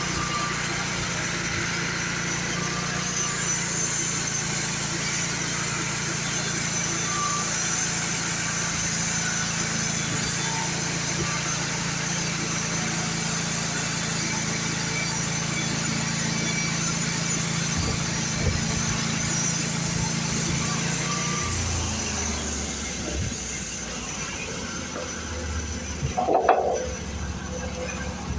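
Engine-driven sawmill running steadily while sawing a log, with a noisy hiss of the cut over the engine. About three quarters of the way in the engine note drops lower, and near the end there is a short clatter.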